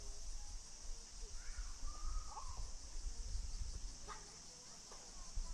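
Outdoor summer ambience: a steady high insect drone, with a few faint distant calls or voices and a low rumble on the microphone.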